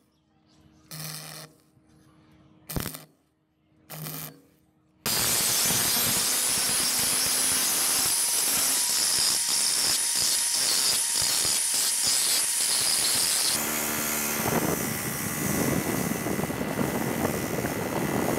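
Short bursts of stick welding on a steel bicycle rim, crackling over a faint hum. About five seconds in, an angle grinder starts and grinds the weld down with a loud, steady grinding noise. Later it gives way to a motor-driven wire brush wheel scrubbing a chainring.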